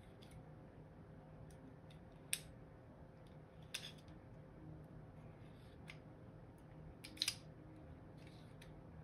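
Small metal parts of a Hi-Capa gas blowback airsoft pistol's slide and recoil spring guide clicking and scraping as they are fitted by hand. There are sharp clicks about two and four seconds in and a quick double click about seven seconds in, with light scraping between.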